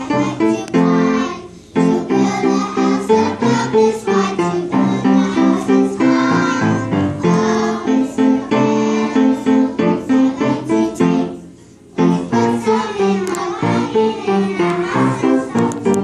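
Children singing a song from a school opera to an instrumental accompaniment, with two short breaks, about two seconds in and about twelve seconds in.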